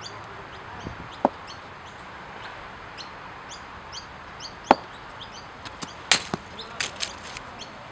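Cricket ball struck sharply by a bat twice, about a second in and again near the middle (the louder hit), followed by a few softer knocks near the end, over a bird chirping repeatedly in short calls.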